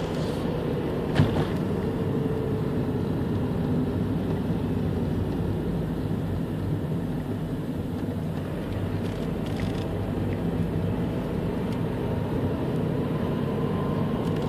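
Car engine and tyre noise heard from inside the cabin, steady through the drive, with a single sharp knock about a second in and a faint whine slowly rising in pitch near the end.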